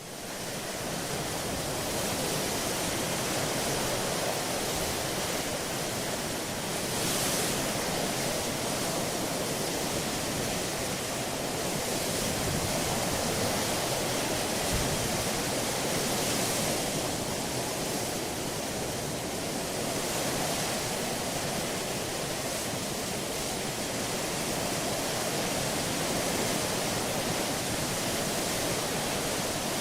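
Ship under way: a steady rush of water and wind along the hull with a low rumble beneath, fading in at the start.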